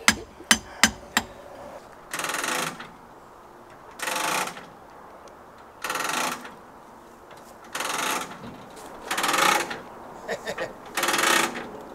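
A few sharp knocks, then a hand-cranked ratchet winch worked in strokes about every two seconds, each stroke a short burst of rapid ratchet clicking as it hauls a car up ramps onto a trailer.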